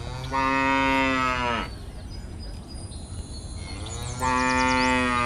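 A cow mooing twice: two long, level calls, each about a second and a half long, with a few seconds between them.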